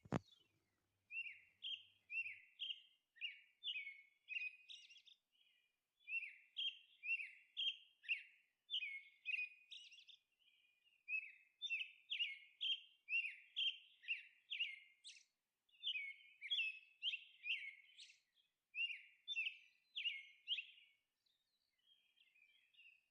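Faint bird chirping: short, downward-slurred chirps about twice a second, in runs broken by brief pauses.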